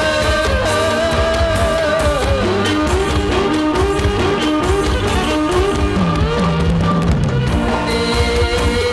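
Likay band music: a wavering melodic lead line over sustained accompanying notes and a steady beat.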